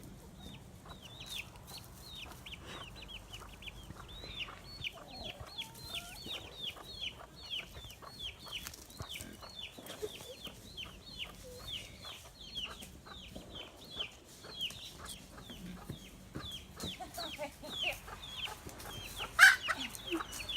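Chickens calling: a quick run of short, falling clucking calls, two or three a second, with a sudden loud burst near the end.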